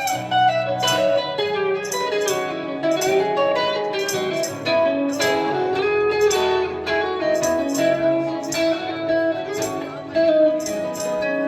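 Band playing an instrumental break between verses of a song: a guitar plays the melody line, with slides between notes, over strummed chords and a steady beat.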